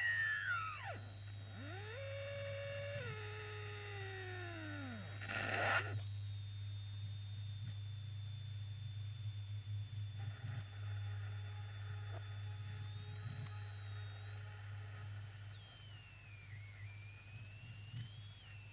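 Experimental electronic noise music. A thin, high steady whistle sits over a low hum, with several tones sliding downward in pitch during roughly the first six seconds, then fainter held tones.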